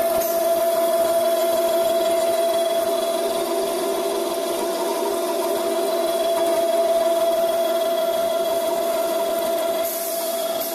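Hydraulic circular cold saw running and cutting through a square metal bar under coolant: a steady machine hum with a high, even whine. The sound drops slightly near the end.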